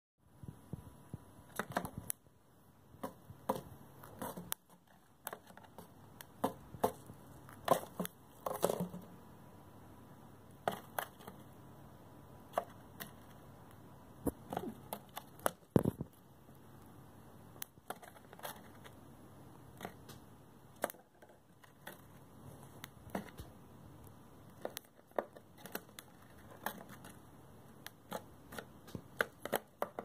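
Cockatiel biting and tearing at cardboard with its beak: irregular sharp crunches and clicks, with the loudest snap about sixteen seconds in.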